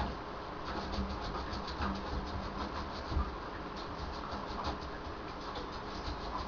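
Papillon puppy moving about in a bathtub, making many quick, irregular light ticks and scratches, with a faint steady hum underneath.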